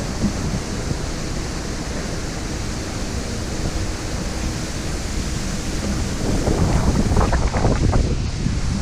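Wind rushing over the microphone on an open ship deck: a steady rushing noise, with stronger gusts buffeting the microphone from about six seconds in.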